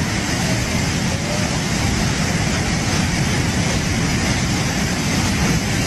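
Loud, steady rushing of a muddy flash-flood torrent.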